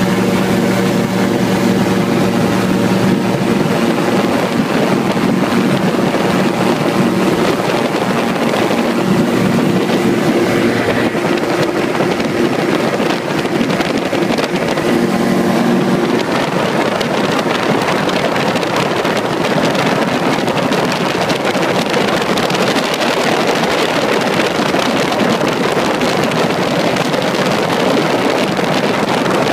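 Gyrocopter engine and propeller running steadily at high power, with wind rushing over the microphone. A steady engine hum is plainest in the first half, then the wind rush takes over.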